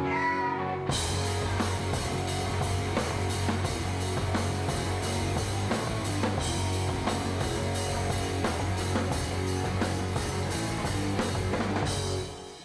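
Live rock band playing. Held guitar notes give way about a second in to the full band, with drums on a steady beat, bass and guitar. The band stops together near the end and the sound dies away.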